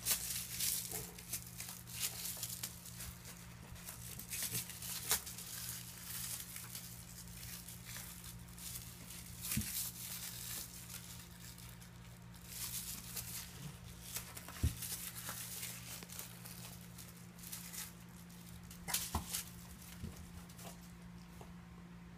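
A cat rolling and scrabbling in an empty bathtub: fur and claws rubbing and scratching on the tub's surface in irregular bursts, with a few sharp clicks. A steady low hum runs underneath.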